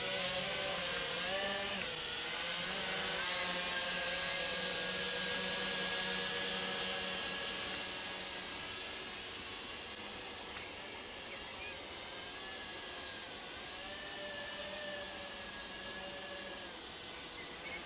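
Small quadcopter drone in flight, its four motors and propellers whirring with a steady high buzzing whine. The pitch wavers now and then as the drone manoeuvres, and the sound grows fainter as it climbs away.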